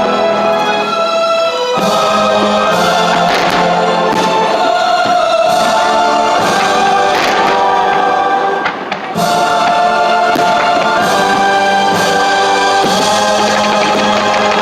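Choral music: a choir singing long held chords that change every second or two, with a brief drop in level a little after halfway.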